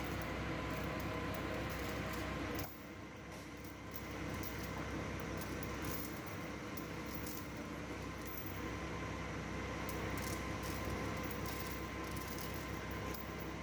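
Forklift engine running steadily with a constant hum, dropping sharply in level a little under three seconds in and then carrying on more quietly.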